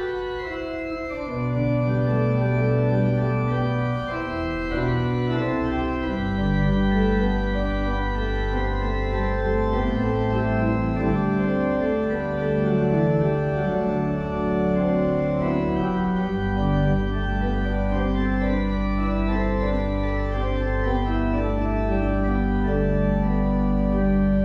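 Organ playing a hymn introduction in sustained chords, with a deep pedal bass joining a few seconds in.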